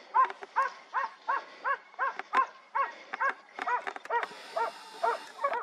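A dog barking in a steady, unbroken run of about three barks a second, the barks high and evenly spaced, typical of a hound on a boar drive.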